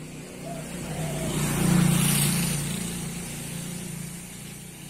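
A motor vehicle passing by on a road, its engine and tyre noise swelling to a peak about two seconds in and then fading away.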